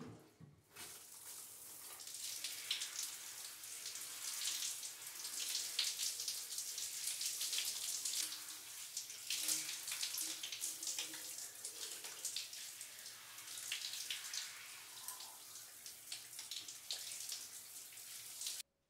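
Shower spray running in a tiled shower cubicle, a steady splashing hiss of water falling on a person and the tiles. It comes on right at the start, builds within the first couple of seconds, and cuts off suddenly near the end.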